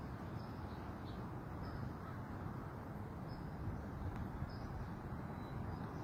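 Steady low rumble and hiss of wind and distant ocean surf, heard from a rooftop a couple of blocks from the beach, with a few faint, short, high chirps from birds.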